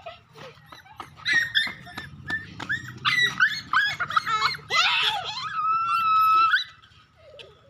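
Puppy whining and yelping in a string of short high-pitched cries, then one long, steady whine lasting over a second about five seconds in, while it is held up by its front legs.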